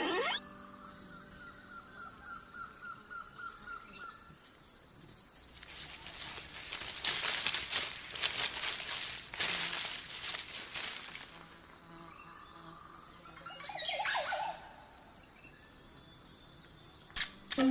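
Soft fabric rustling and brushing from a plush hand puppet moving up close, loudest through the middle, with faint chirps before it, a short falling chirp later, and a few sharp clicks near the end.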